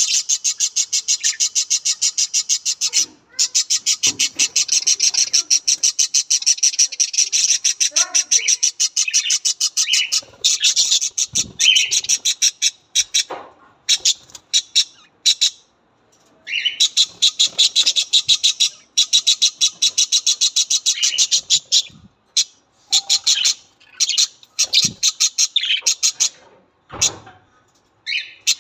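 Budgerigar chatter: long runs of rapid, sharp high chirps in a fast even rhythm, broken every few seconds by brief pauses.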